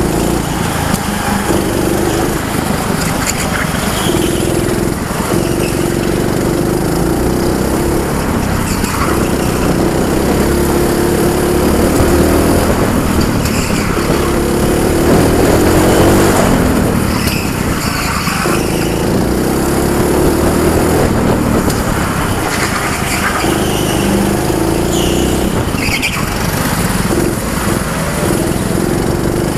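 Junior go-kart engine running hard on a lap, heard from on board, its revs repeatedly rising and falling as it accelerates and slows for corners.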